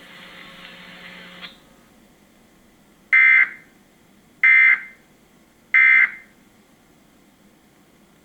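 Emergency Alert System end-of-message data bursts closing the test broadcast: three short, identical, harsh digital squawks about 1.3 seconds apart. A faint hiss before them cuts off about a second and a half in.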